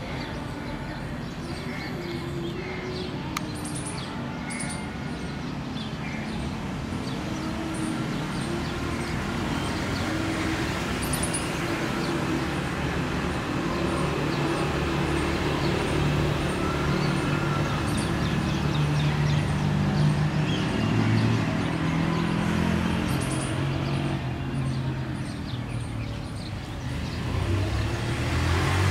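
A Pakistan Railways diesel locomotive approaching with its express train, its engine note growing steadily louder, with birds chirping in quick regular calls over it.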